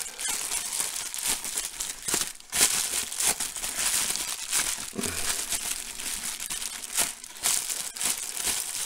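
Bubble wrap crinkling and crackling unevenly throughout as it is handled and worked open by hand.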